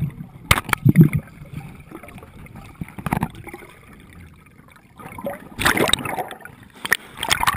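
Sea water sloshing and gurgling around a GoPro camera in its waterproof housing, in irregular gushes with a few sharp knocks, louder surges about two-thirds of the way in and near the end.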